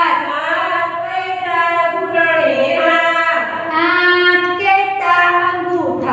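A female voice singing a slow melody in long held notes that slide from one pitch to the next.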